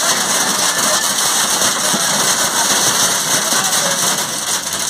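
Heavy hail pelting a vehicle's roof and windshield, heard from inside the cab: a dense, steady clatter of many small impacts.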